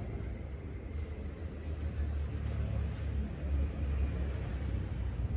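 A steady low rumble, with a few faint ticks about halfway through.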